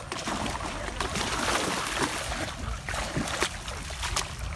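Pond water splashing and sloshing as a seine net is dragged through it, with many short, sharp splashes of giant snakeheads thrashing at the surface.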